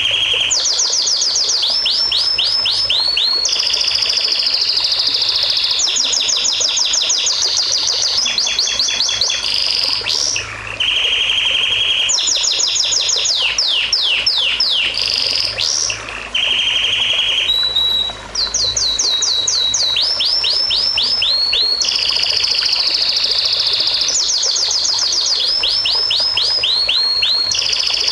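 A songbird singing continuously and loudly. It alternates held, buzzy high notes with quick runs of rapid downward-sweeping whistles, and the phrases repeat every few seconds with only brief pauses.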